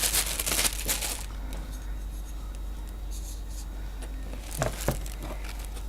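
Rustling of packaging as a microphone is taken out of its box, crinkly for about the first second and then quieter, with two light knocks a little after four and a half seconds.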